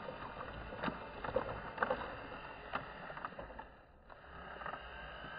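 Toy RC excavator driving on its plastic tracks over sand and grit, with scattered small clicks and crunches and a brief lull about four seconds in.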